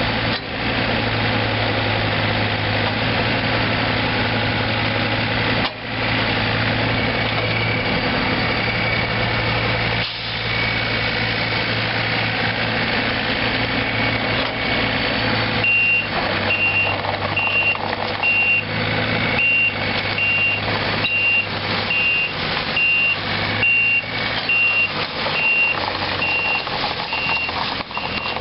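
The Yanmar three-cylinder diesel of a 2008 Takeuchi TB235 mini excavator runs steadily while the boom and bucket move. About halfway through, the excavator's travel alarm starts beeping, high-pitched and about twice a second, as the machine tracks, with irregular knocks alongside.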